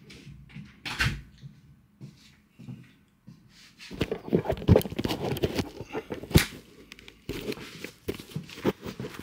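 A run of scuffs, knocks and clicks, sparse at first and then coming thick and fast from about four seconds in, with a few sharper knocks standing out.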